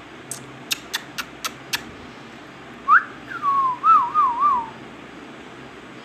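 Indian ringneck parakeet giving six quick sharp clicks, then, about three seconds in, a whistle that swoops up and then wavers up and down several times.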